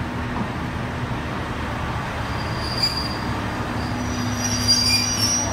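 Train creeping slowly along the platform to couple with another: a steady low rumble of the running gear, with thin high-pitched squeals from the wheels, once briefly about halfway through and again more strongly near the end.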